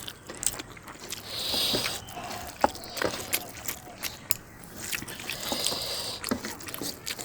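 Close-miked eating sounds: wet chewing and squishing of food, with many small mouth clicks and two longer crackly stretches.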